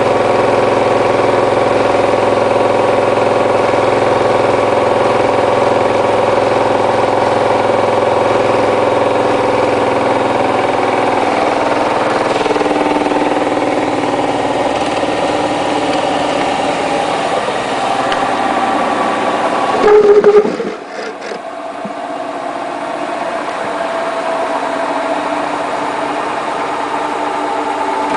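Hotpoint Ultima WT960 washing machine spinning a load of mats, a steady motor whine with several tones that falls in pitch about halfway through. About two-thirds of the way in there is a brief loud burst, after which the machine runs on more quietly.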